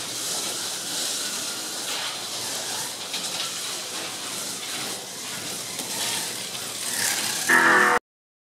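Slot cars running on a wooden track: small electric motors whirring and pickup braids hissing along the rails in a steady stream. A brief louder burst comes near the end, and the sound then cuts off suddenly.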